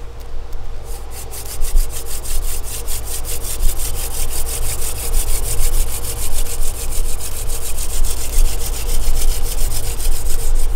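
Hand-drill friction fire: a wooden spindle spun rapidly back and forth between the palms, rubbing and rasping in the notch of a wooden hearth board. The rasping comes in an even rhythm of several strokes a second.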